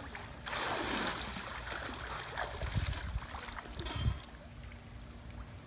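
Water splashing and pouring off a swimmer as he climbs out of a pool, starting about half a second in and lasting about a second, then quieter water sounds.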